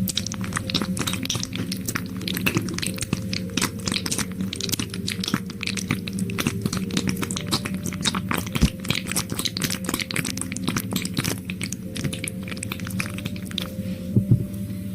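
Close-miked ASMR mouth sounds: rapid, wet clicking and smacking, thinning out near the end, over a faint steady low hum.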